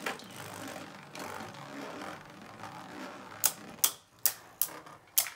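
Two Beyblade Burst spinning tops whirring as they spin in a plastic stadium, then clacking sharply against each other about five times in the last two seconds.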